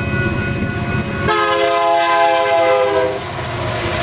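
Union Pacific GE Evolution-series diesel locomotive sounding its multi-note air horn as it passes. About a second in, the chord gets louder and drops slightly in pitch, then cuts off about three seconds in. After that comes the rumble and rattle of the double-stack container cars rolling by.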